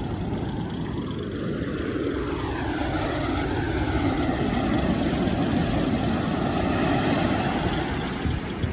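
Motorboat engine running steadily, its pitch rising and falling a little, over a rush of wind and surf.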